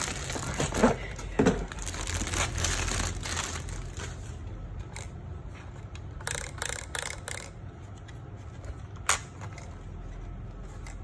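Plastic packaging rustling and crinkling as a toy RC truck and its transmitter are handled, dense over the first few seconds. A quick run of clicks and taps follows a bit past halfway, and one sharp click comes near the end.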